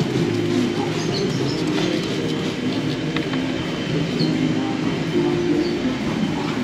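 Background music with held low notes that change pitch every second or so.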